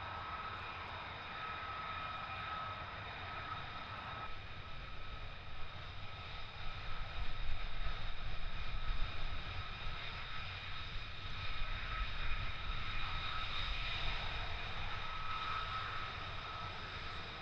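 F-35A fighter jets' Pratt & Whitney F135 turbofan engines running at taxi power: a steady high whine over a low rumble. The rumble grows louder and rougher from about six seconds in, then eases off near the end.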